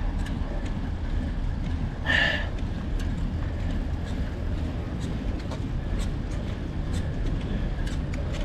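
Steady low rumble of wind and road noise on a bicycle-mounted camera's microphone as a road bike climbs slowly on asphalt, with scattered light ticks. A brief high-pitched sound comes about two seconds in.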